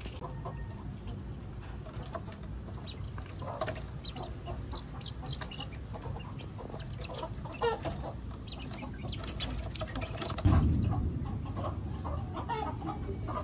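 Chickens clucking, with short calls scattered throughout. About ten seconds in, a loud low rumble sets in suddenly and fades away.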